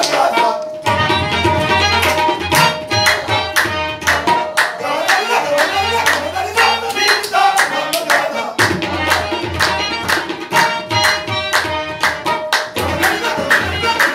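Qawwali accompaniment: tabla playing a dense run of strokes with a deep booming bass drum that comes and goes, over harmonium holding sustained chords.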